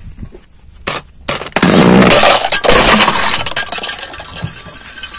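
A hollow hard-plastic surprise egg cracking and breaking apart under a car tyre: a sharp crack about a second in, then a couple of seconds of loud crunching and splintering before it eases off.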